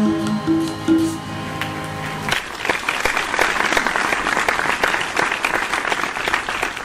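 A harmonium sounds its closing notes, which stop about two seconds in. Audience applause follows and runs on.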